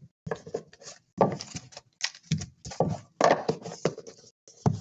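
Trading-card packaging and cards being handled: an irregular run of rustles, taps and scrapes of cardboard and wrappers.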